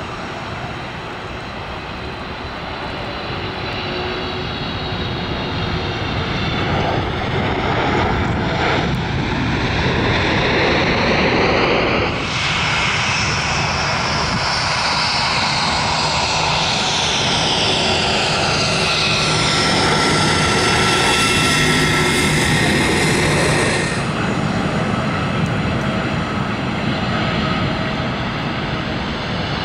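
Boeing 777 airliners coming in low to land: the rushing roar of their GE90 turbofans, with whining tones that glide in pitch as each aircraft passes. Three landings are spliced together, with abrupt cuts about twelve and twenty-four seconds in.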